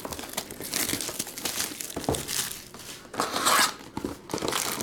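Plastic shrink wrap crinkling and tearing as a sealed Panini Prizm trading-card hobby box is unwrapped and opened, in irregular rustling bursts, the loudest about three seconds in.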